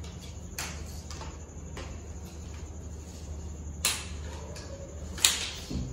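Hollow plastic tent-frame rods and L-shaped plastic connectors being pushed together and set down on a tiled floor: a few sharp clicks and knocks, the loudest about five seconds in, with a softer thud just before the end.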